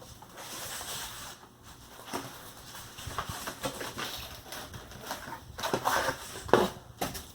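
Packaging being handled and opened: uneven rustling and scraping with scattered knocks and clicks as a vinyl record is drawn out of its shipping box.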